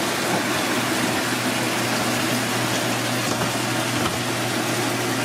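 Steady rushing noise with a constant low hum, like kitchen machinery or running water.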